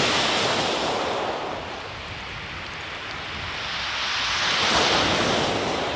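Sea waves breaking and washing over a shingle beach: a steady hissing wash that eases off, then swells again with a wave surging up the stones about four to five seconds in.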